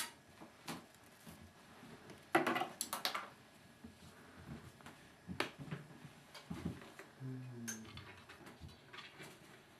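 Kittens playing on a hard floor: scattered light taps and scuffles, with a louder burst of clattering clicks about two and a half seconds in.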